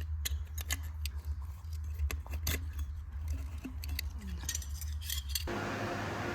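Irregular light metallic clicks and clinks of tools and engine parts being handled, over a steady low hum. About five and a half seconds in, the sound cuts abruptly to a steady hiss with a faint hum.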